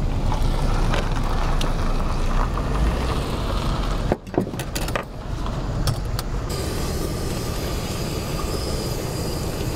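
Canister gas camp stove burning with a steady roar, and crumbed fish fillets frying in butter in a small metal mess tin. The sound cuts out briefly about four seconds in.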